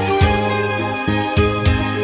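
Instrumental music of an Armenian spiritual song, with no singing: held bass notes that change every half second or so, under a regular beat of sharp hits.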